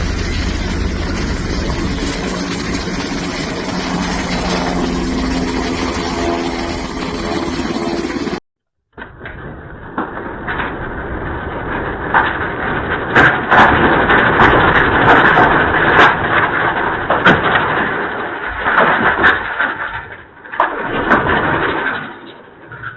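A motor vehicle's engine running with a steady hum. After a cut about eight seconds in, it gives way to a louder, rough rushing noise with scattered knocks, which fades near the end.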